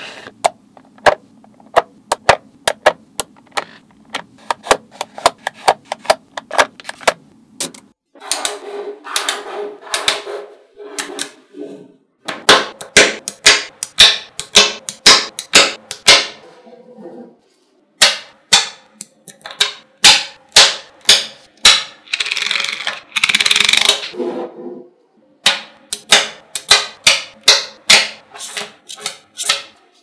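Small magnetic balls clicking sharply as they snap together, one after another in quick irregular runs, with a few short stretches of dense rattling as clusters of balls knock together.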